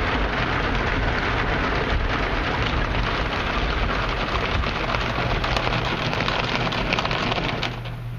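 Ryko SoftGloss XS 2.0 automatic car wash spraying water and scrubbing the vehicle's doors with its cloth brushes, heard from inside the cabin as a dense, rain-like spatter on the body and glass. After about five seconds it breaks into many separate slaps, and it drops off noticeably just before the end.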